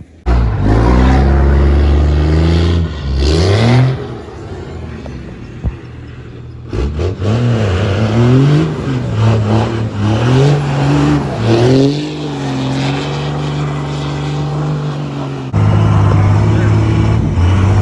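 Truck engine revving hard, its pitch rising and falling over and over, with sudden jumps in loudness a few times.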